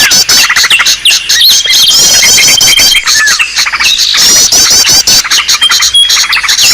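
Bird-lure recording of several small songbirds calling over one another: rapid chattering trills, a high held whistle and short sweeping chirps. The calls repeat every few seconds as a layered loop.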